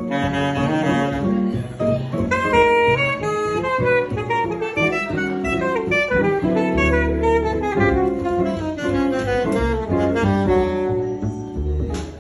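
Live jazz combo: an alto saxophone plays a fast, many-note solo line over hollow-body electric guitar comping and double bass. The sax phrase winds down near the end.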